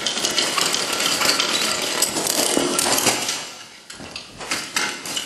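Fast, dense clattering and rattling that fades briefly about three and a half seconds in, then starts again.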